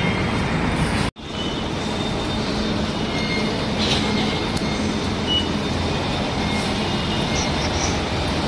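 Steady background din of a busy metro station concourse, cut off for an instant about a second in. A short high beep sounds a little past five seconds, around when a card is tapped at the automatic fare gate.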